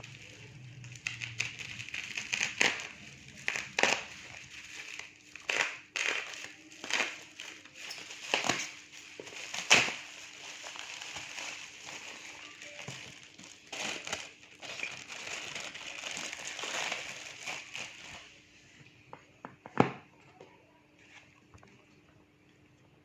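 Packaging being handled and opened: crinkling and crackling wrapping with many sharp clicks and knocks for about eighteen seconds, then quieter, with one sharp click a few seconds before the end. A faint steady hum runs underneath.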